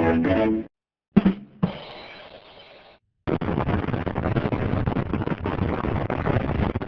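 A string of short sound-effect clips: a brief pitched sound, a sharp hit with a fading hiss, then about three and a half seconds of fast, dense drumming like a drum roll on a kit with snare and cymbals.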